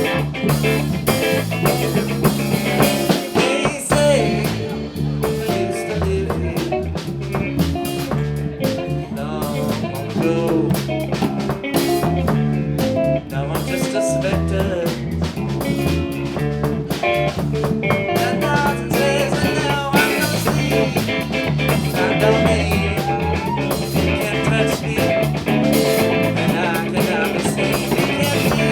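Live band playing: guitar lines with bent notes over bass and a drum kit keeping a steady beat.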